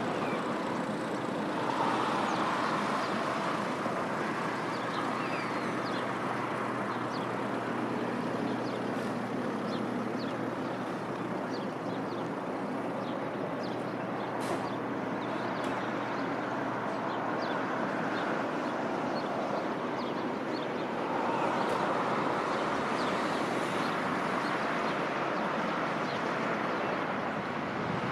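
Steady distant roar of a Boeing 777-300ER's GE90-115B jet engines as it moves along the runway, swelling a little about two seconds in and again about 21 seconds in. Many short, high bird chirps are scattered over it.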